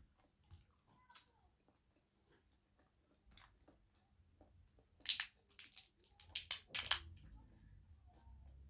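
Crayfish shell being cracked and pulled apart by hand: faint clicks at first, then a run of loud crackling snaps about five seconds in.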